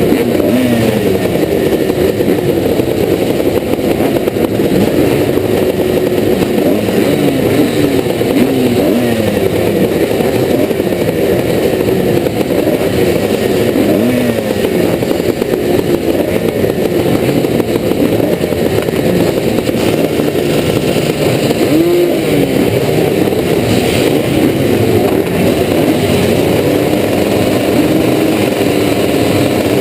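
Two-stroke motocross motorcycles, a 1986 Yamaha YZ490 among them, racing. Several engines rev up and down at once in rising and falling sweeps as they accelerate and shift.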